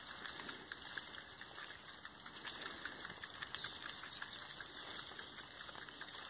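Bicycle rolling over a dirt track: tyre crunch with a stream of small rapid clicks. Short high bird chirps come every second or so in the background.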